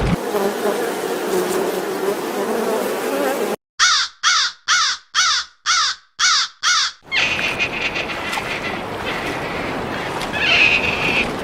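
An animal calling: a quick run of seven short, loud calls, about two a second, each sliding down in pitch, between stretches of outdoor background noise.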